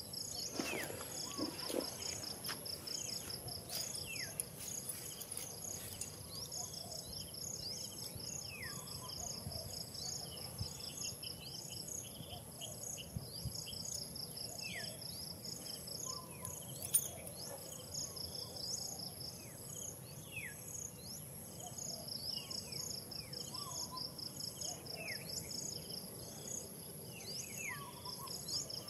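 Insect chorus: a fast, even pulsing trill with a steady high whine above it. Short falling whistled bird calls come every few seconds.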